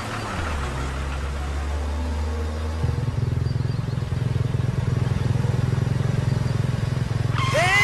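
Motor vehicles running on a road. About three seconds in, a motorcycle engine's fast, even putter takes over and grows gradually louder.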